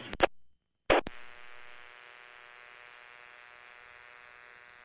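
Police radio scanner audio: a short burst of static about a second in, then an open channel with no voice, carrying a steady buzzing hum.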